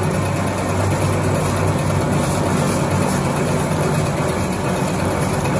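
Snack food extrusion and cutting machinery running: a steady low machine hum with a constant whirring rush over it.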